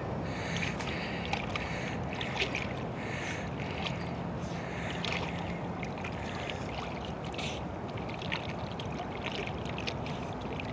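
A dog wading in shallow pond water, making scattered small splashes and sloshes as it moves and noses about for a disc sunk on the bottom.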